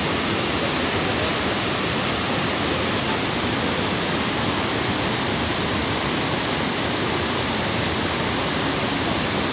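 Steady rushing noise of a Semeru cold-lahar flood: a torrent of muddy water, sand and stones pouring across a wide riverbed, even and unbroken.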